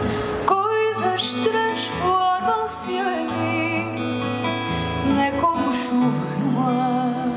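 A woman singing a slow, tender song live into a microphone, with vibrato on the held notes, accompanied by acoustic guitar and bass.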